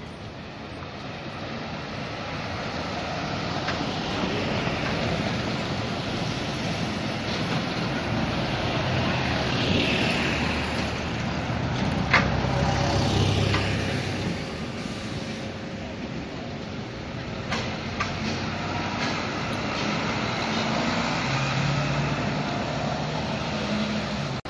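City buses, single-deckers and double-deckers, pulling away and passing close by, their engines running over steady street traffic noise that swells over the first ten seconds. A sharp click sounds about twelve seconds in, and voices of passers-by are heard.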